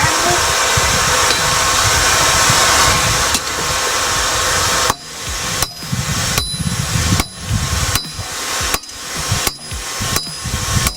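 A loud steady hiss for about the first five seconds, then hammer blows on hot steel on an anvil, about one every 0.7 seconds, each with a short metallic ring, as the sword blade is drawn out.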